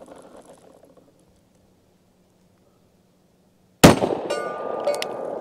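Quiet at first, then a single shot from a Henry Big Boy .357 Magnum revolver nearly four seconds in. A steel target rings after it with a clear metallic tone.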